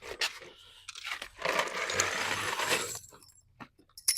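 Metal screws rattling and clinking in a box as someone rummages through them, with a denser rattle lasting a couple of seconds in the middle and a sharp click near the end.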